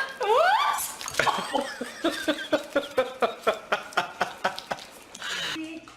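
A dog vocalizing on cue: a rising howl-like whine, then a quick run of short pitched yips, about four a second, that stops near the end.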